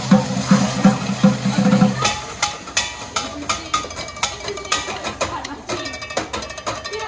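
Metal pots and pans struck in a fast, syncopated percussion rhythm. A backing track with a heavy bass beat plays under it and cuts out about two seconds in, leaving only the sharp metallic clanks.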